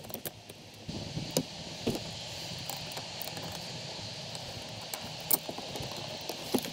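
Small metal clicks and clinks of pliers, spanners and nuts against a steel clutch pedal box housing as a master cylinder is bolted in, a few sharp taps spread through, over a steady hiss that comes up about a second in.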